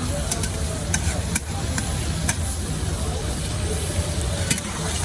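Chicken karahi sizzling in a wok-like karahi pan while a metal spatula stirs it, clinking sharply against the pan several times. A steady low rumble runs underneath.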